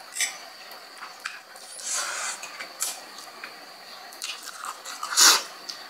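Close-up slurping and chewing of saucy instant noodles, wet squishy mouth sounds, with one loud slurp about five seconds in.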